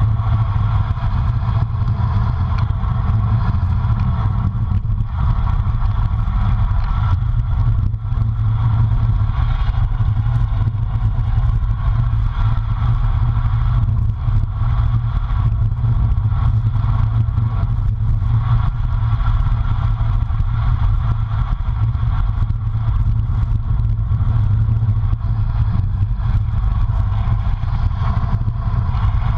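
Steady wind rush on the microphone of a bike-mounted camera on a moving road bike, with road hum and small rattles from road vibration.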